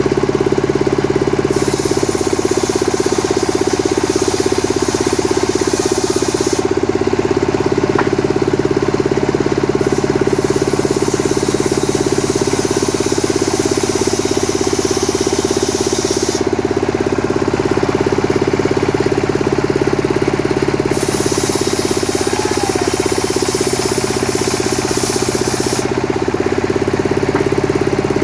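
Stihl MS 382 two-stroke chainsaw running steadily at high speed. Three stretches of several seconds each add a hissing rasp, typical of the chain cutting through coconut palm wood.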